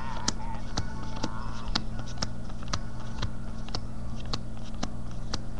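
Yu-Gi-Oh trading cards being flipped through by hand one at a time, each card giving a short click, about two a second, over a steady low hum.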